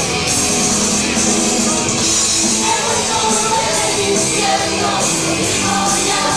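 Punk rock band playing live and loud: distorted electric guitars and drums with crashing cymbals, with singing over it.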